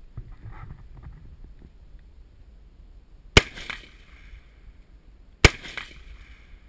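Two rifle shots from an H&K MR223 semi-automatic .223 rifle, about two seconds apart. Each is followed by a fainter second report and a trailing echo.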